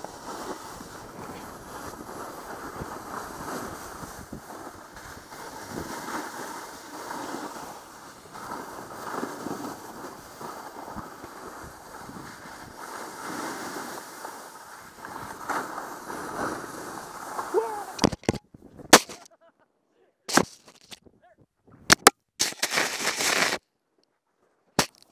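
Snowboard running and carving over packed snow: a steady scraping hiss with wind on the microphone. About eighteen seconds in it gives way to a string of sharp knocks and thumps, broken by sudden cuts to silence, as the camera tumbles into the snow in a fall.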